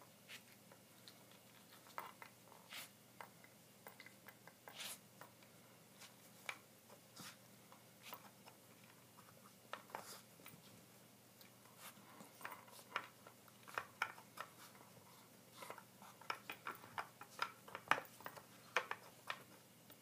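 A Shiba Inu puppy nosing and pawing at the wooden sliding discs of a dog puzzle toy: light, irregular wooden clicks and clacks, coming faster and louder in the last few seconds.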